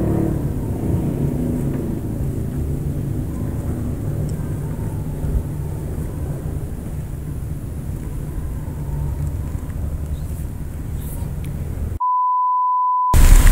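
Steady low rumble with a light hiss. Near the end everything cuts out for a steady electronic beep at one pitch, lasting about a second.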